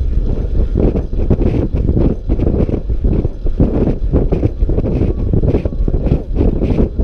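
Wind buffeting a GoPro camera's microphone on a track bike ridden at speed, a loud, low, rumbling rush that rises and falls without pause.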